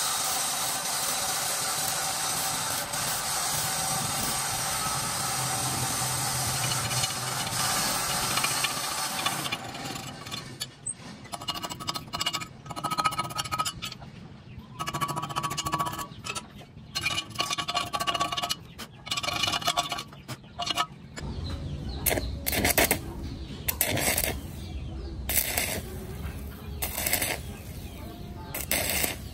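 Stick (arc) welding on a cast housing held in a lathe chuck: the arc crackles and sizzles steadily, then goes in short stop-start bursts from about a third of the way in. A low hum joins about two-thirds in.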